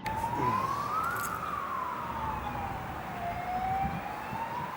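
Emergency vehicle siren in a slow wail, its pitch rising, falling and rising again.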